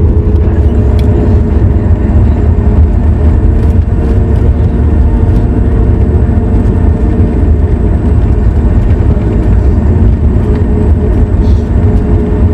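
Cabin noise inside a Boeing 737 MAX 8 rolling on the ground after touchdown: a loud, steady low rumble from the airframe and wheels, with the CFM LEAP-1B engines' steady hum over it.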